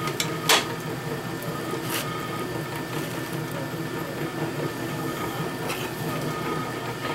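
Motor-driven potter's wheel running with a steady mechanical hum while clay is centred and coned on it. A single sharp click about half a second in.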